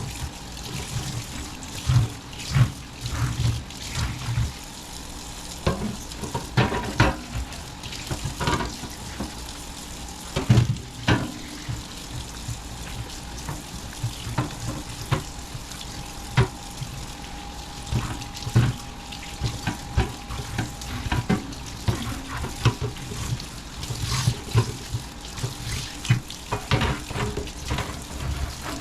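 Water running from a kitchen tap into a sink, with frequent irregular knocks and clatters of things being handled and washed in it.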